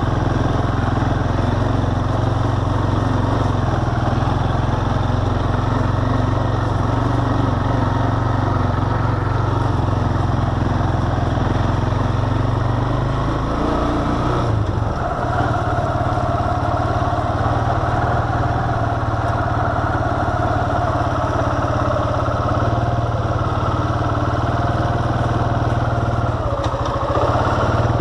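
ATV engine running steadily while the quad is ridden along a bumpy dirt trail. The engine note shifts about halfway through and changes again near the end.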